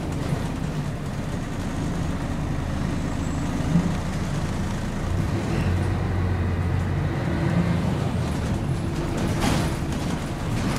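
Scania L113CRL single-deck bus's rear-mounted six-cylinder diesel engine running under way, heard from inside the passenger saloon as a steady low drone. The drone deepens and strengthens for a few seconds in the middle, with a short burst of rattly noise near the end.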